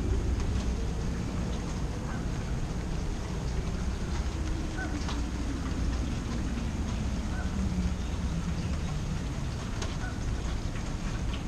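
Storm wind rumbling steadily on the microphone. Under it a faint distant wail rises and then slowly sinks in pitch, a tornado warning siren, and a few short bird calls sound now and then.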